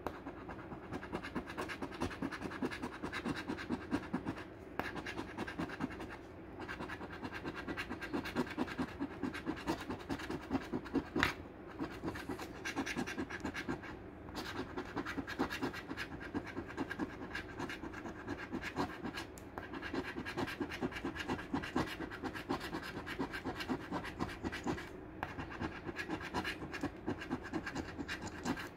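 A coin scratching the latex coating off a paper scratch-off lottery ticket in rapid back-and-forth strokes, stopping briefly a few times.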